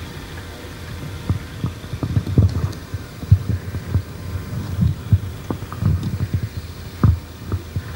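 Irregular low thumps, several a second at uneven spacing, over a steady low hum.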